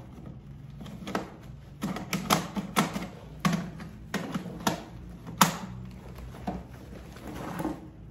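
Irregular hard clicks and knocks, about a dozen, as the plastic parts of a leaf blower-vacuum are handled and fitted together.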